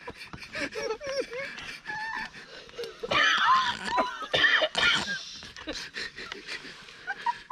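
A group of people laughing, squealing and exclaiming in disgust, loudest from about three to five seconds in, with wheezy breaths between.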